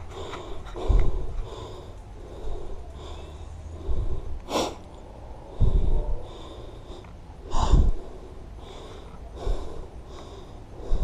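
A man breathing hard close to the microphone, a breath every second or two, with two louder, sharper exhales about halfway through: he is out of breath after running.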